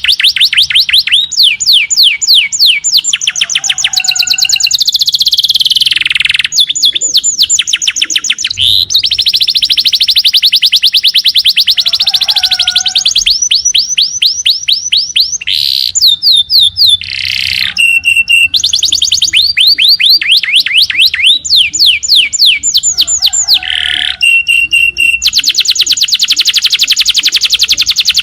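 Small songbird song from a masteran tutoring recording: long, very fast, high-pitched trills of repeated downsweeping notes, broken by short pauses and a few buzzier phrases.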